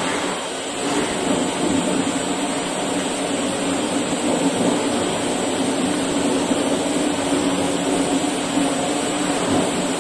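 Autopulit MA-250 automatic brush satin-finishing machine running: its abrasive brush wheel spins on an electric motor with a steady hum and hiss. The level dips briefly just under a second in.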